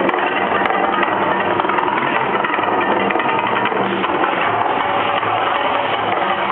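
Steady, loud rushing and rumbling from the Mirage's man-made volcano show, its fountains and effects heard as a dense roar through a small camera microphone.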